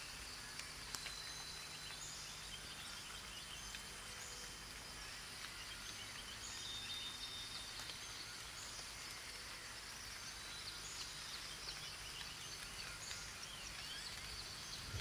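Forest ambience: birds chirping again and again over a steady high-pitched insect drone and a soft hiss.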